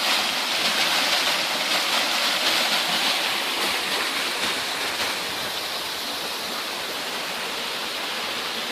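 Creek water falling over rocks in a series of small cascades, a steady rush of water that eases slightly about halfway through. The creek is usually dry and runs like this only after rain.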